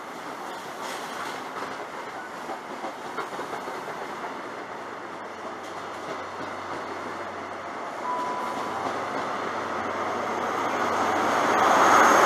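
Passenger train running along a station platform with a steady rumble and wheel noise, and a brief high squeal about eight seconds in. Near the end a train passes close and fast, growing loudest at the very end.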